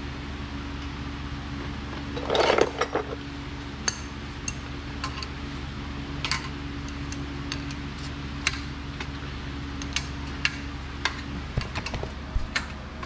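Scattered metallic clinks and taps of hand tools and metal parts being handled during rear strut work, with a louder clatter about two and a half seconds in, over a steady low hum.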